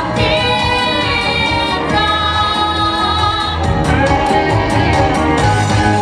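Girls' vocal ensemble singing a pop song into microphones over a backing track with a steady beat, holding long notes.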